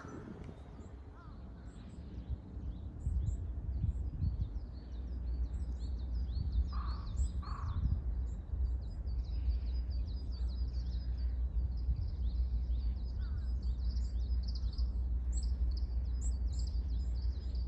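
Small birds chirping and twittering in quick high notes, thicker in the second half, over a steady low rumble of wind on the microphone. Two lower calls come about a second apart near the middle.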